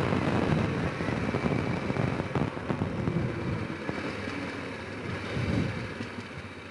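Honda Rincon 650 ATV's single-cylinder engine running under way, with a few sharp cracks about two seconds in; the engine gets quieter over the second half.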